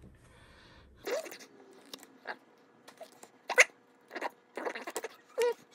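Pokémon trading cards sliding against one another as they are flipped through by hand: a string of short swipes, some with a brief squeak. It starts about a second in, and the loudest swipe comes about three and a half seconds in.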